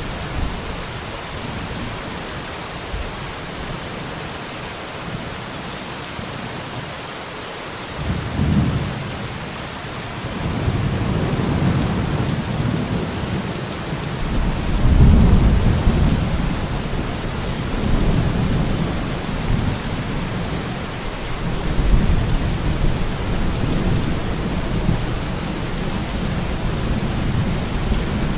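Steady rain with rolling thunder: a low rumble starts about eight seconds in and keeps rolling through the rest, swelling several times and loudest about halfway.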